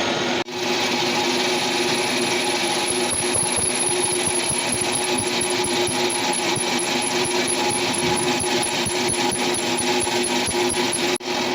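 Metalworking machine running while machining a belt pulley: a steady mechanical hum with a faint high whine pulsing through most of it. The sound drops out for an instant shortly after the start and again near the end.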